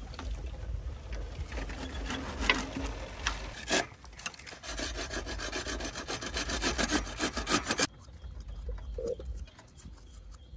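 Bow saw cutting through a bamboo stem with rapid back-and-forth strokes. The sawing stops suddenly about three quarters of the way through, leaving a few soft knocks.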